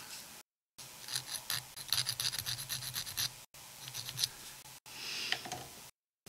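A sanding stick rubbed quickly back and forth over a small plastic model kit part, in short scraping strokes, in a long spell and then two shorter ones.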